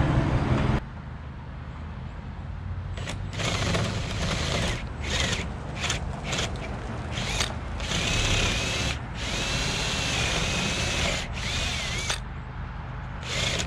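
Cordless drill boring excess cured epoxy out of the bolt holes in a fiberglass sailboat hull, run in about a dozen short trigger bursts, its motor whine rising and falling, with the longest runs past the middle. A low rumble cuts off about a second in.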